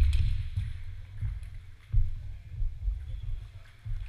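Table tennis rally: sharp clicks of the celluloid-type ball off bats and table over a low, uneven rumble with heavier thumps near the start and about two seconds in. The rally ends partway through.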